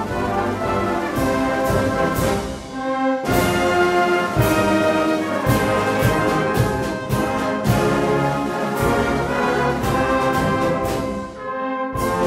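Brass band music: many brass instruments playing together.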